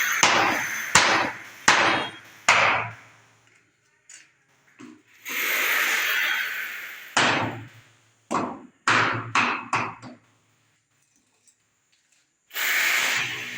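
Hammer blows on a building site, spaced out at first and then a quicker run of about six. Between them a longer hissing noise rises and fades, and another starts near the end.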